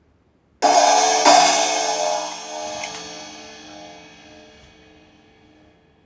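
A cymbal struck twice in quick succession, then left to ring and slowly die away over several seconds.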